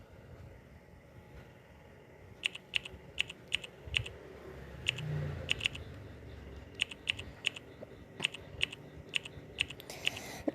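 A run of sharp, irregular clicks like typing on a keyboard, starting about two and a half seconds in and coming roughly two a second.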